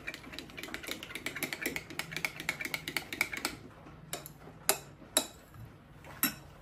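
Quick run of light clicks from a kitchen utensil working in the raita for about three and a half seconds, then a few sharper single clicks.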